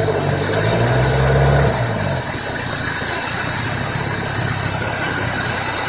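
1994 Mazda MX-3 engine idling with the intake air hose removed, and a steady hiss coming out of the open throttle body: a vacuum leak that the owner has not yet traced. A deeper hum sits under it for about the first two seconds, then eases.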